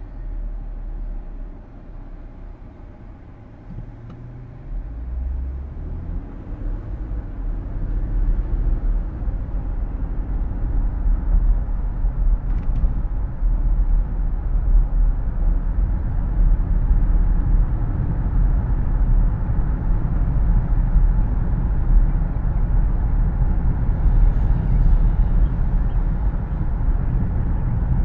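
Inside a car's cabin: low engine and tyre rumble that grows louder as the car picks up speed about five seconds in, then settles into steady road noise, with the air-conditioning fan's hiss underneath.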